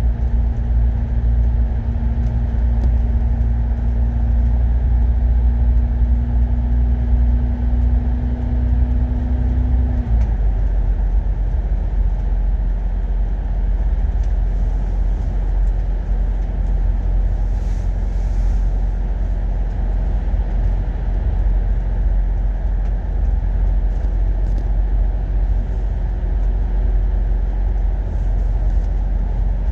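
Euro 6 MAN double-decker bus running, a steady low engine and road rumble. A steady whine over it dips slightly and stops about ten seconds in.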